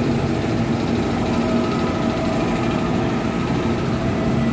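Steady drone of an electric commuter train standing at the platform, its onboard equipment humming with a few steady low tones.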